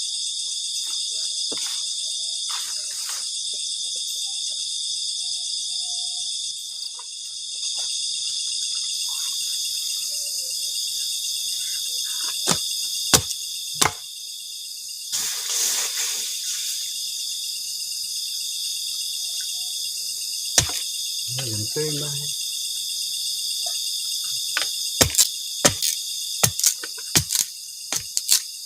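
Steady high-pitched chirring chorus of night insects in the forest, with scattered sharp clicks and knocks, clustered near the end, and a brief hissing swell about halfway through.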